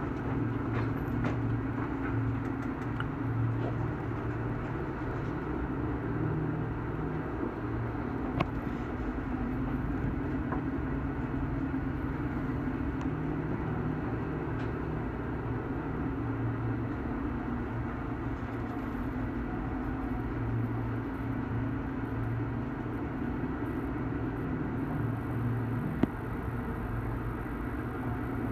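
Research ship's engines and machinery running with a steady low drone, mixed with the rush of wind and water at sea. A sharp click comes about eight seconds in and another near the end.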